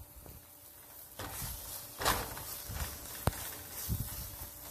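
A silicone spatula scraping and pressing thick, dried khoya (reduced milk solids) around a nonstick pan in several strokes, each a soft swish with a dull thud; the khoya is cooked enough that it no longer sticks to the pan. A single sharp click about three seconds in.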